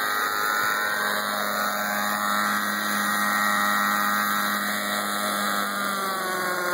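Thunder Tiger Raptor 50 nitro RC helicopter's two-stroke glow engine and rotor blades running steadily as it comes down and lands on the pad. Near the end the pitch drops as the engine is throttled back.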